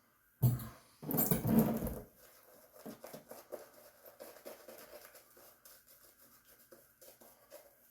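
1901 Gem Junior safety razor scraping through lathered stubble in short, faint scratchy strokes on the second pass, after a louder brief rustle in the first two seconds.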